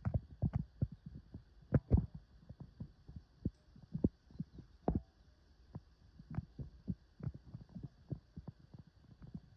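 Wood fire crackling, with irregular sharp pops and snaps, busiest in the first few seconds.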